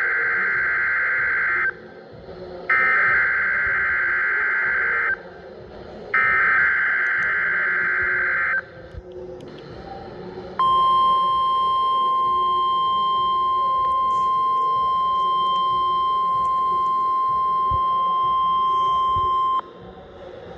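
NOAA Weather Radio SAME alert header: three buzzing, warbling digital data bursts, each about two and a half seconds long with a second's gap between them. After a short pause comes the 1050 Hz warning alarm tone, one steady high beep held for about nine seconds that cuts off suddenly. Together they mark the start of the station's weekly test of its warning alarm.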